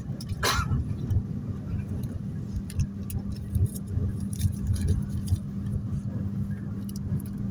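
Ride noise inside a moving passenger train carriage: a steady low rumble of wheels on rail with a constant hum, and light clicking and rattling of carriage fittings. A brief high sweep sounds about half a second in.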